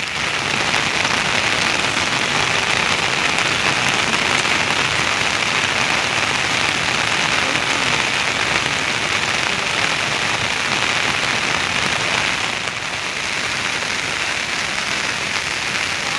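Steady heavy rain falling and pattering on surfaces, easing slightly about three-quarters of the way through.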